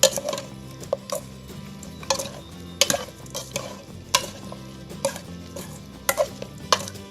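Spatula scraping and knocking against a pan while stir-frying chicken in curry paste, about once every half second to a second. A light sizzle sits underneath.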